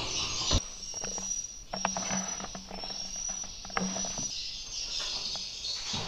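Swiftlets calling in a swiftlet house: a thin, high chirp, rising slightly and repeated about once a second, over a low steady hum, with a few sharp clicks.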